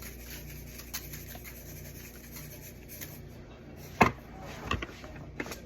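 Hands handling and rubbing seasoning into raw chicken pieces, with soft rubbing and scraping noises. One sharp knock comes about four seconds in, followed by a few lighter knocks near the end.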